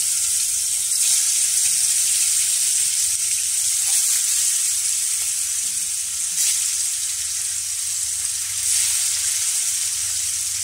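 Marinated fish pieces sizzling in hot oil in a kadai, a steady loud hiss. The sizzle surges briefly a few times as more pieces are lowered into the oil.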